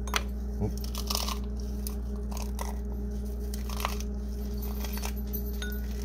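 Walnuts being crushed by hand and crumbled into a bowl: a run of small, irregular crunches and crackles over a steady low hum.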